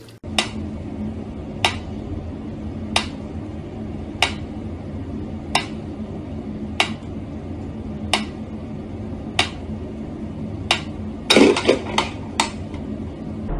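Wind-up pendulum metronome ticking slowly and evenly, about one sharp tick every 1.3 seconds. Near the end a short cluster of louder knocks breaks in among the ticks.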